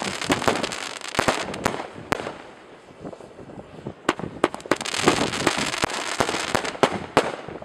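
Fireworks going off: a quick run of sharp bangs with hissing and crackling, thinning out briefly around the middle, then building again into dense crackling.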